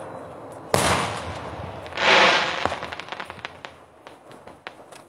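Daytime aerial fireworks shells exploding. A sharp bang comes about a second in, then a louder burst about two seconds in, followed by a rapid string of small cracks that thins out and fades.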